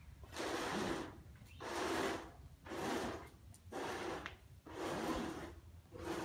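Heavy, rhythmic breathing close to the microphone, about one breath a second.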